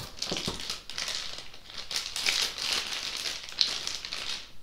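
Plastic packaging crinkling and rustling as it is handled, with irregular sharp crackles.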